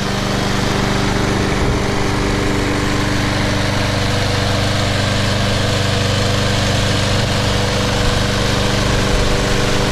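Briggs & Stratton Intech 6.75 OHV single-cylinder engine on a Snapper walk-behind mower running at a steady speed.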